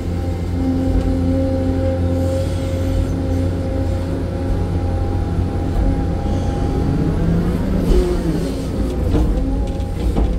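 Hydraulic excavator's diesel engine running under digging load, heard from inside the cab, with a steady whine over a low rumble. About eight seconds in the pitch dips briefly and a few knocks sound as the bucket works the soil.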